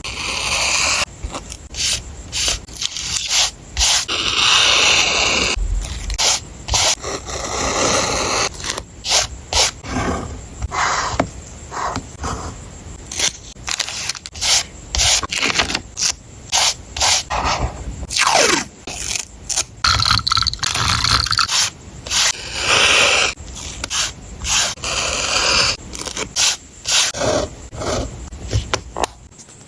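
Paper and stationery being handled while a journal spread is laid out: scraping and rubbing on paper, mixed with many crisp, sharp clicks and taps. About eighteen seconds in, a sound falls in pitch.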